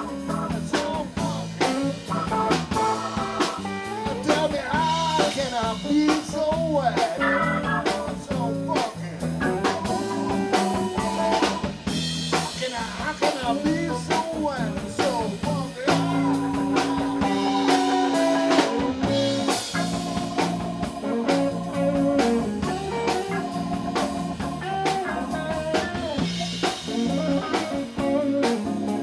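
A live band playing an instrumental number: Hammond B-3 organ, electric guitar, bass and drum kit, with a steady drum beat under held organ chords and melodic lines.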